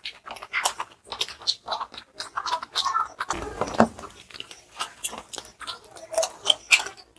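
Close-up chewing and biting as people eat naan with curry: an irregular run of short, crackly mouth sounds several times a second.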